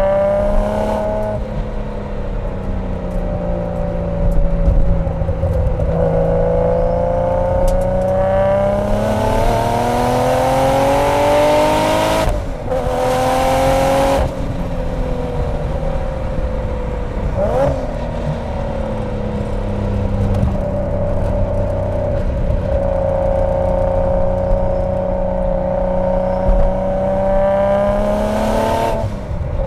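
Single-turbo Mk4 Toyota Supra's inline-six with a Blitz Nur Spec exhaust, heard from inside the car, pulling hard through the revs. The engine note climbs for several seconds, breaks off with a burst of hiss about twelve seconds in, then climbs again into a long steady pull before dropping away sharply near the end.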